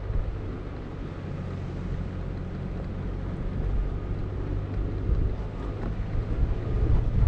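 Low rumble of a vehicle driving on a dirt road, with wind blowing on the microphone of a camera mounted outside on the roof; it grows slowly louder toward the end.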